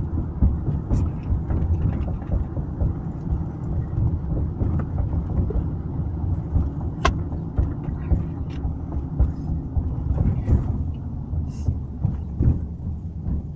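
Steady low rumble of road and engine noise inside a moving car's cabin, with a few sharp clicks, the loudest about halfway through.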